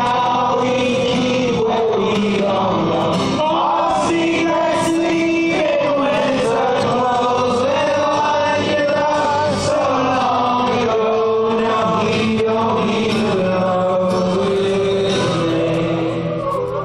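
A man singing a folk song to strummed acoustic guitar, heard from the audience in a theatre.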